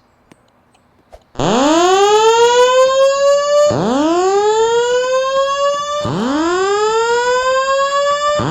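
Fire alarm sounding a whoop tone: a loud rising sweep lasting about two and a half seconds, repeated three times with a fourth just starting, beginning about a second and a half in after near silence and a couple of faint clicks.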